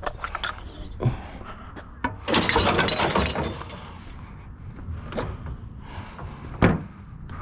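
Rummaging through a pile of curbside junk: scattered knocks and clicks, then a loud crashing clatter about two seconds in that lasts about a second, and another sharp knock near the end.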